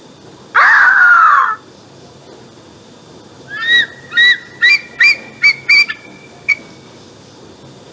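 Eagle calls: one long, harsh screech falling in pitch about half a second in, then after a pause a run of about seven short, high piping notes coming faster and faster, and one last note near the end.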